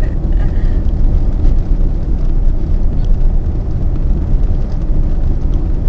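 Steady low rumble of a car driving over a rough unpaved lane, heard from inside the car, with a few faint knocks.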